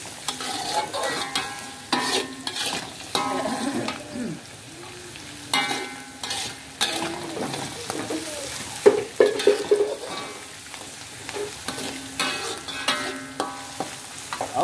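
Stir-frying in a metal wok: a metal spatula scraping and clinking against the wok again and again over a steady sizzle of salted mustard greens, garlic, shallots and chilli frying in oil.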